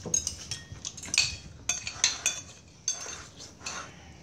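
Metal spoons clinking and scraping against plates and bowls as several people eat, in short irregular clinks.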